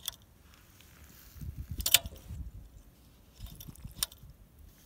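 Sharp clicks and rustling handling noise close to the microphone as a finger works the tickler button on a Ural motorcycle's carburettor, flooding the float bowl to prime it for a cold start. Three clicks, the loudest about two seconds in; the engine is not running.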